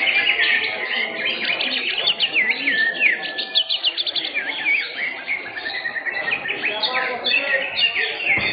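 Many caged greater green leafbirds (cucak hijau) singing at once in a songbird contest: a dense, overlapping tangle of quick chirps, trills and sweeping whistles, over a weaker murmur of voices.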